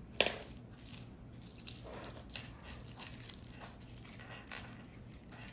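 Small plastic toy packaging being handled and opened: a sharp click about a quarter second in, then soft crinkling and rustling.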